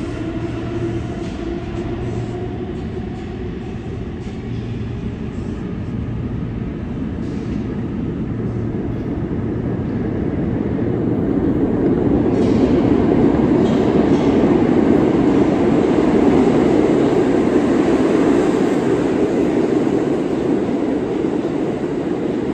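New York City subway trains in an underground station. A departing train's motors whine, rising in pitch over the first few seconds. From about ten seconds in, another train passing on the far track brings a heavy rumble of wheels on rail that grows loud and holds through the rest.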